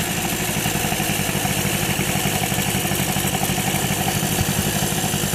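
Suzuki FA50 moped's small two-stroke engine running steadily with a fast, even pulse, its automatic transmission engaged. The engine is shaking hard under drive, and the owner suspects the transmission or gearing as the cause of the vibration.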